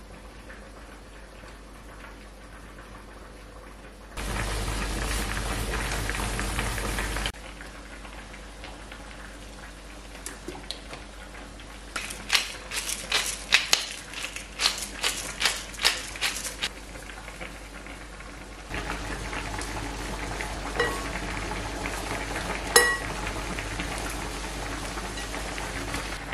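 A hand pepper grinder cracking black peppercorns, a quick run of sharp clicks in the middle. From about two thirds of the way in, mushrooms sizzle in a frying pan with a spatula tapping now and then; a shorter, louder stretch of sizzling hiss comes a few seconds in and cuts off abruptly.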